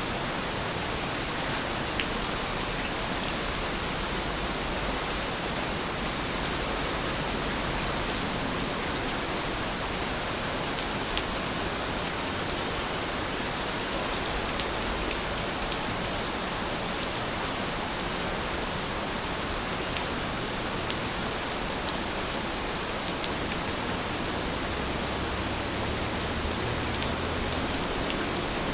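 Steady rain falling, an even hiss of many drops, with a few sharper single drop taps now and then.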